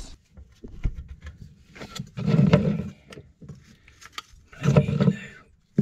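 Handling noise from plastic pipe fittings being worked by hand: two rough scraping, rubbing bursts, one about two seconds in and one near the end, with scattered light clicks and taps between them.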